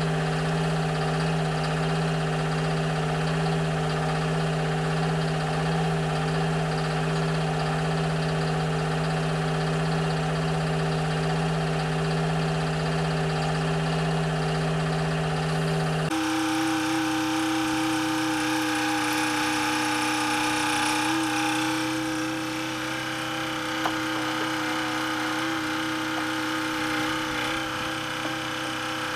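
Hyhoe 685B excavator's diesel engine running steadily at idle. About sixteen seconds in the engine note changes abruptly to a different, higher steady note.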